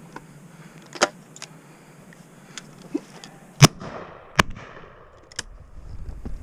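Shotgun fired twice close by, about three-quarters of a second apart, the first shot the loudest, with echo rolling after each. Fainter single shots from other guns sound farther off before and after.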